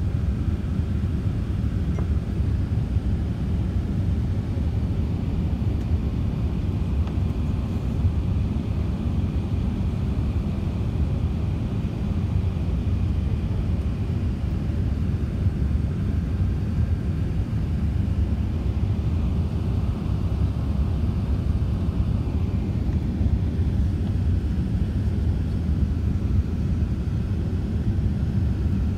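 Steady low rumble inside an airliner's cabin, the engines and the air rushing past the fuselage heard from a window seat as the plane descends toward landing.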